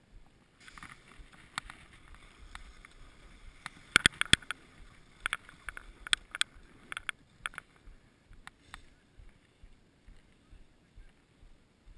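Skis sliding over packed snow: a scraping hiss with scattered sharp clacks, the loudest cluster about four seconds in. It quietens in the last few seconds.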